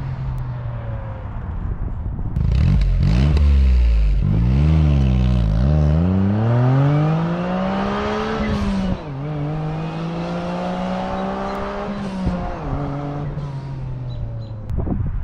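Autozam AZ-1's turbocharged F6A three-cylinder engine, breathing through an ORIGINALITY catalyst downpipe and a Suzukisport dual-tip muffler, idling and then being revved. It gives a few quick blips up and down, then a longer climb, drops at about nine seconds to a steady raised speed, and falls back to idle a few seconds later.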